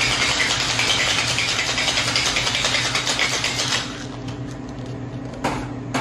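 Ice rattling hard and fast inside a stainless steel tin-on-tin cocktail shaker as an espresso martini is shaken. The shaking stops a little under four seconds in, and a couple of sharp metal knocks follow near the end.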